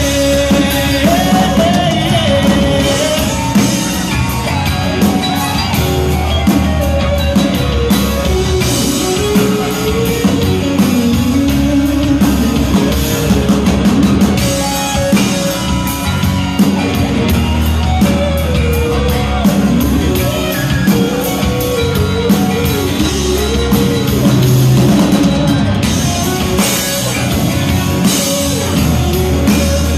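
Live rock band playing an instrumental passage of the song, with drum kit, bass and a guitar carrying a wandering melody.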